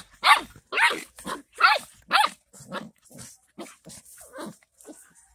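Mother dog and puppy play-fighting, giving a quick run of short barks and yelps about two a second. The calls are loud and high in the first couple of seconds, then become softer and lower.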